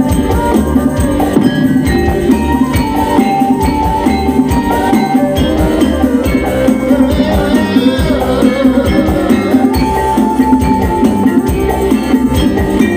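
Live Javanese campursari band music, with kendang hand drums keeping a steady beat under melodic instruments.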